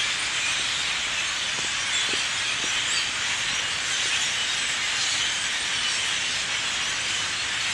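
A huge flock of birds calling all at once: countless overlapping chirps and chatter merging into a dense, steady, high-pitched din.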